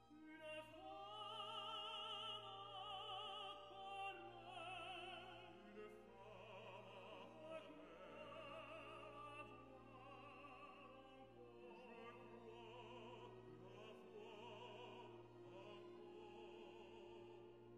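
Faint background music: long held sung notes with a wide vibrato, in several voices, over a low steady hum. It is a little stronger in the first six seconds, then quieter.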